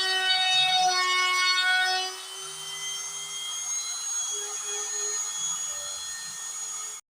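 A DIY CNC carving machine running, its motors whining in several tones that step and shift in pitch. It is louder for the first two seconds, then quieter until the sound cuts off suddenly near the end.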